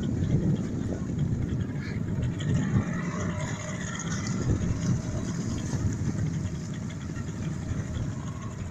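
Boat engine running steadily at low speed, a continuous low rumble.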